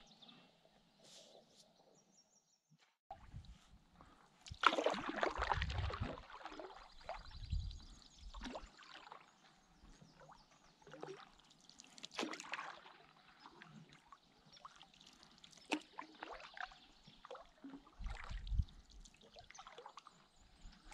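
Water splashing and trickling beside a canoe, with scattered knocks against the hull. The loudest splashing and rumble comes about five seconds in.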